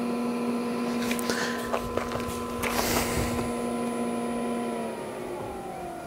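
Planar portable diesel heater running its startup sequence: the blower fan hums at a steady pitch, then winds down with a falling pitch about five seconds in. A few clicks and a brief hiss come in the first half.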